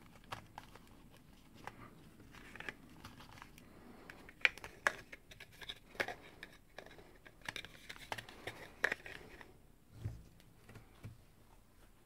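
A small pocket knife and its cardboard gift box being handled: scattered light clicks and taps as the knife is set into the box insert, light scraping of card, and a soft thump near the end.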